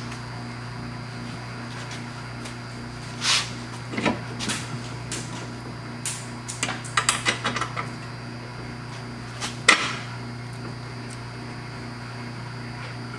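Scattered metal clanks and clicks of hand tools and suspension hardware while a coilover's lower mounting bolt is being fitted, with a quick run of clicks about halfway through and a single sharp click near the end, over a steady low hum.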